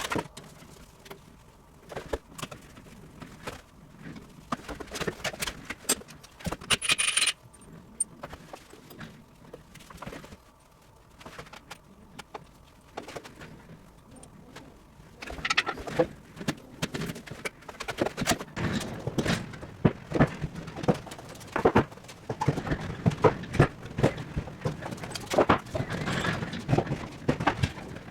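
Irregular metallic clinking, knocking and rattling of manual dismantling work, with tools and small parts being handled; a brief high scrape or squeal about seven seconds in, and the knocks come thick and fast in the second half.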